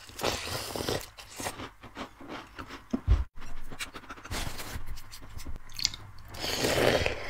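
Close-miked crunching and chewing of crumbly Chinese walnut shortbread cookies (taosu), with many small crackles as bites break off. There is a loud thump about three seconds in.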